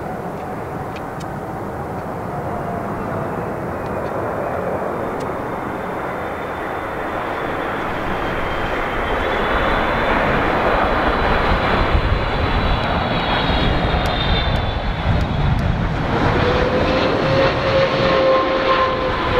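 Jet engines of a Boeing 777-300ER airliner on final approach, a steady rumble with a whine that grows louder as the jet draws near and passes close by. The whine's tones slide slowly down in pitch.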